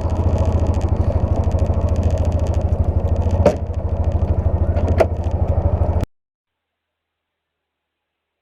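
Engine of the snow-plow vehicle running steadily with an even low throb, with two short sharp knocks in the middle. The sound cuts off abruptly about six seconds in, leaving silence.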